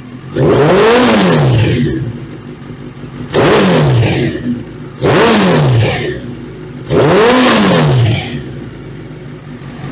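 Gen 1 Suzuki Hayabusa's 1299 cc inline-four engine idling in neutral and blipped with the throttle four times, each rev rising and falling back to idle.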